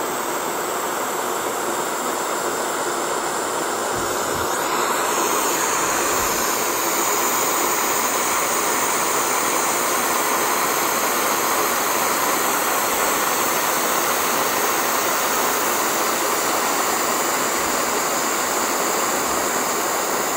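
Air hissing steadily out of the open valve hole of a deflating exercise ball. The hiss shifts and grows slightly louder about five seconds in.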